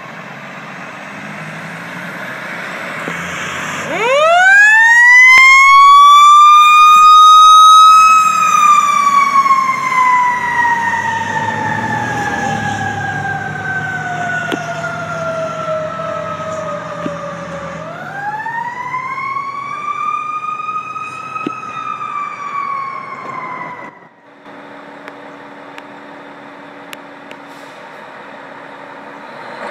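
Fire engine's mechanical siren winds up steeply to a high wail about four seconds in, holds, then coasts slowly down in pitch for about ten seconds. It is wound up again and cuts off a few seconds later, leaving quieter truck engine noise.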